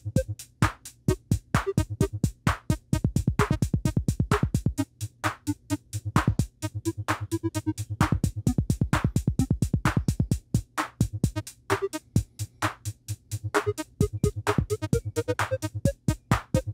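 Electronic beat from the Teenage Engineering TX-6 field mixer's built-in synth and drum engines: a fast, even hi-hat pattern with kicks under short synth plucks of an A flat major chord. The pitches of the plucks shift as the knobs are turned.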